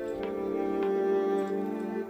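Background instrumental music with slow, long-held notes; the chord shifts a moment in.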